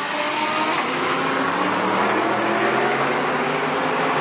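Several GT3 race car engines running at once, their notes overlapping, with the pitch rising slowly as the cars accelerate.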